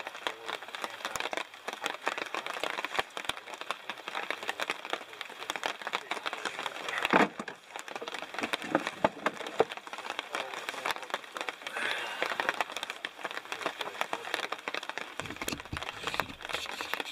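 Split firewood sticks being handled and set down, with a wooden knock and clatter about seven seconds in and a few lighter knocks after it, over a steady light crackling and rustling.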